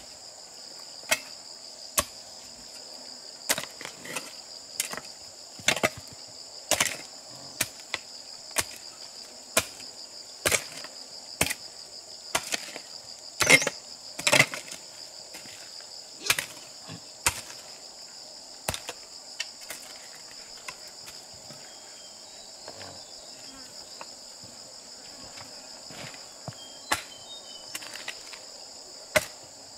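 Irregular sharp knocks of hand tools striking wood, roughly one a second, with the two loudest about halfway through and a sparse stretch after them, over a steady high insect chorus.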